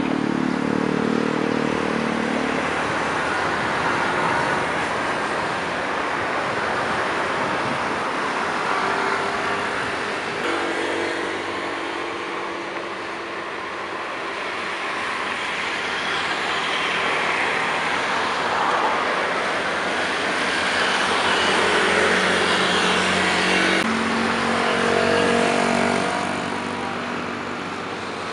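Continuous engine noise with slow swells in loudness and steady hums that shift in pitch now and then.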